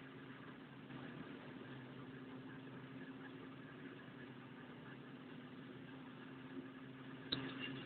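Faint, steady hum of a running machine, with a single sharp click near the end.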